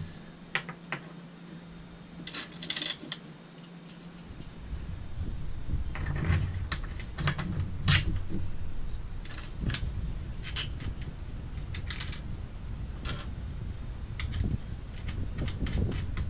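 Irregular metallic clicks and clanks as the Taco Grand Slam 280 outrigger mount is gripped and turned by hand, with a low rumble underneath from about four seconds in.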